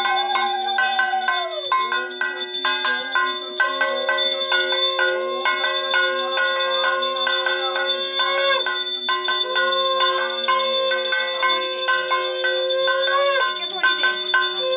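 Puja hand bell rung rapidly and continuously, a fast, even stream of strikes with a steady ringing tone. Over it, a second long held note sounds for several seconds at a time, breaking off and starting again a few times.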